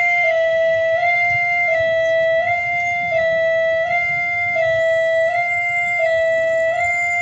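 Railway level-crossing warning alarm sounding its two-note electronic tone, stepping back and forth between two close pitches about every 0.7 seconds. A faint high whine joins about halfway through.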